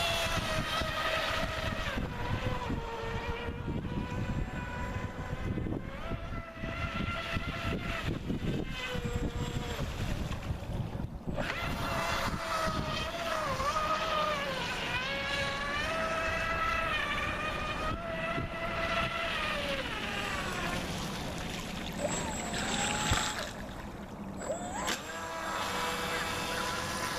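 Brushless outrunner motor on a radio-controlled boat whining through a Kyosho Dolphin outboard's flex shaft, its pitch rising and falling with the throttle as the boat runs on the water.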